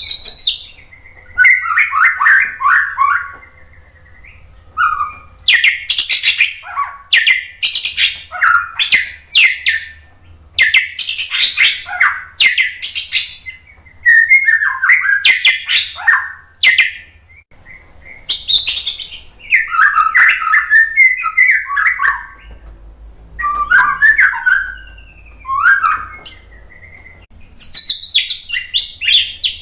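White-rumped shama (murai batu) singing loudly: a string of varied phrases, each a second or two long with short pauses between, mixing lower warbled phrases with higher, sharp rapid notes.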